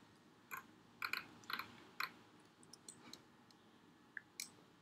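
A few light, sharp clicks from computer input, mostly in the first two seconds, then only faint ticks over a low background.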